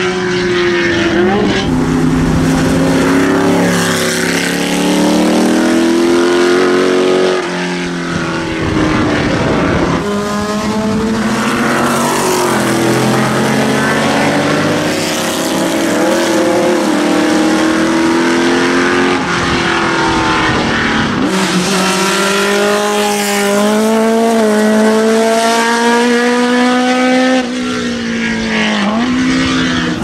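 Historic racing sports-car engines at full throttle on a wet circuit, car after car. Each one's pitch climbs and drops back at every upshift, over the hiss of tyre spray.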